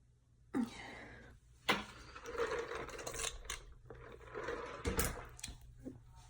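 Rustling and clattering handling noises with a few sharp knocks, about half a second, a second and a half, and five seconds in; no burp.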